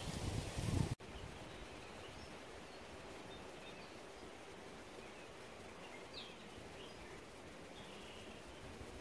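A loud low rumble on the microphone for about the first second, cut off abruptly. Then a faint steady open-air hush with a few faint bird chirps.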